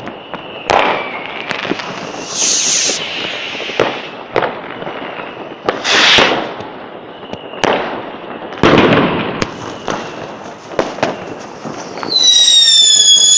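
New Year's Eve fireworks: scattered sharp bangs of firecrackers and rockets, with several short hissing bursts. Near the end a loud, high whistling firework sounds, its whistle falling slightly in pitch.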